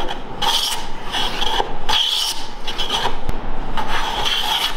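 Old Stanley No. 5 jack plane with a slightly cambered blade taking shavings off the edge of a board: about six quick passes in a row, each a short hiss of the iron cutting wood.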